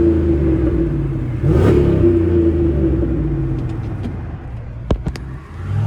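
Chrysler 300C's 5.7 L Hemi V8 revved in neutral through an exhaust with the resonators removed: a quick blip about a second and a half in, then the revs fall back over the next few seconds and pick up again at the very end. A few sharp clicks near the end.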